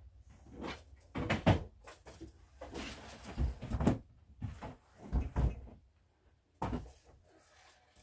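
Household things being handled and put away while tidying: a series of knocks and bumps with rustling between, the sharpest about a second and a half in and the last near seven seconds.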